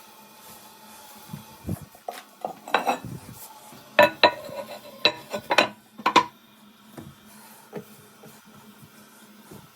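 Hard clinks and knocks of tools and toilet parts being handled. A scatter of sharp strikes comes in the first half, and the loudest four or five fall between about four and six seconds in.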